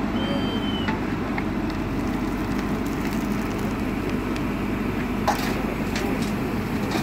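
JCB 4CX backhoe loader's diesel engine running steadily under work, with a short sharp knock about five seconds in.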